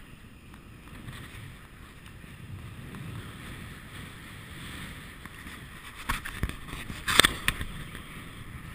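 Wind rush and low road rumble picked up by an action camera on a moving road bicycle. About six seconds in comes a cluster of sharp knocks and clicks, the loudest a little after seven seconds.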